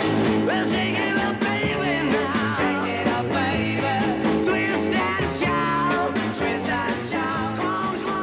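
Rock music with guitar and drums and a singing voice, playing at a steady loud level.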